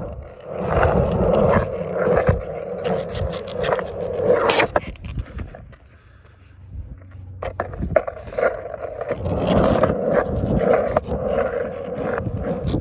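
Skateboard wheels rolling steadily, with a sharp clack a little under five seconds in and another about eight seconds in. The rolling dies down briefly between the two clacks, then picks up again.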